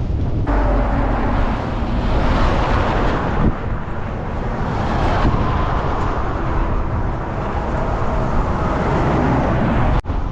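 Strong wind buffeting the microphone: a loud, steady rumble and rush, broken by a brief dropout near the end.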